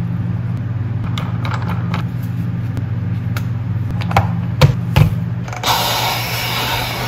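Handheld steam cleaner: a few plastic clicks and knocks as the brush head is fitted to its hose, then, near the end, a sudden steady hiss of steam jetting from the nozzle. A steady low hum underlies all of it.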